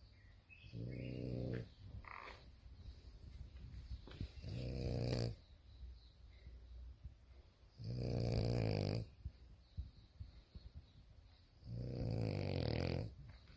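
French bulldog snoring in her sleep: four snores, one every three to four seconds, each about a second long.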